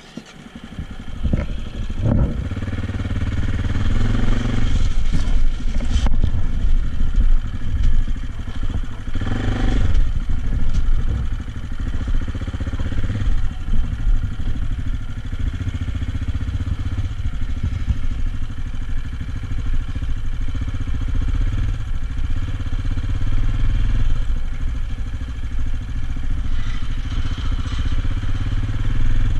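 AJP PR7's 600 cc single-cylinder engine running as the motorcycle rides slowly along, coming up over the first couple of seconds and swelling a few times after that, with some clatter.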